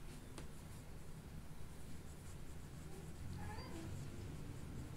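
Damp paintbrush rubbing and dabbing on watercolour paper, over a low steady hum. A short faint high cry comes about three and a half seconds in.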